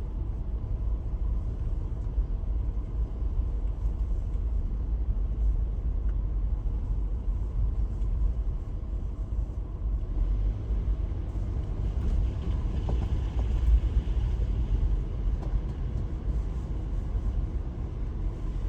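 Steady low rumble of a car driving, heard from inside the cabin: engine and tyre noise on the road, with one brief louder bump about fourteen seconds in.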